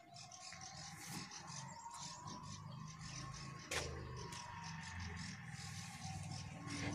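Faint rustling of cloth as dry clothes are pulled off a washing line, with one sharp click about four seconds in and a faint steady whine underneath.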